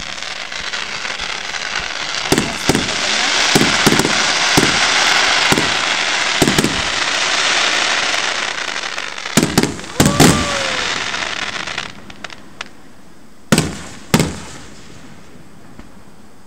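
Fireworks display: a long, dense stretch of crackling with sharp bangs scattered through it, which dies away about twelve seconds in. Two loud single bangs follow near the end.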